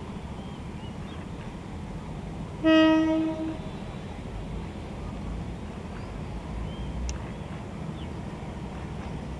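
Diesel railcar's horn sounding one short steady blast about three seconds in as the train approaches, over a low steady rumble.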